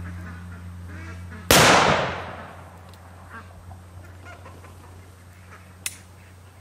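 A single shot from a Colt cap-and-ball black-powder revolver about a second and a half in: a loud blast that dies away over about a second. A short sharp click follows near the end.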